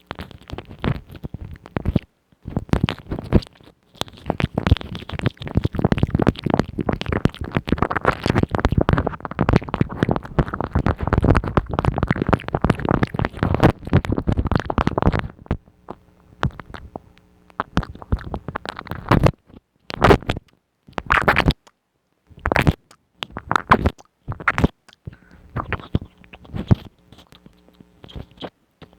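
Close-miked ASMR trigger sounds: a dense run of crackling, scratchy clicks for about ten seconds, then separate short bursts with pauses between them.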